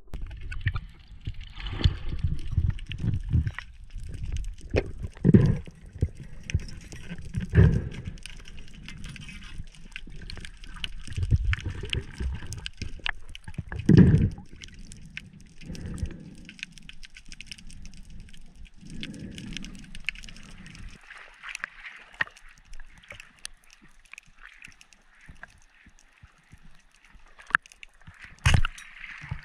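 Underwater sound picked up by a diver's camera: water rumbling and sloshing around the housing, with scattered knocks during the first two-thirds. After that it settles to a faint crackle, and there is one sharp click near the end.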